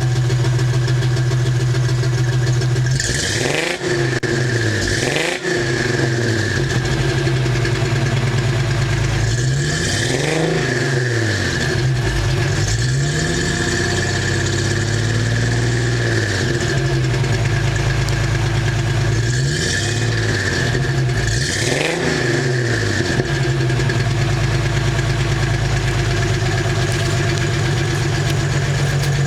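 1994 Ford Mustang 3.8-litre V6 idling, then revved up and let fall back about six times before settling back to idle. The engine has a misfire, which the owner later traced to a vacuum leak and poor aftermarket coil, plug wires and plugs.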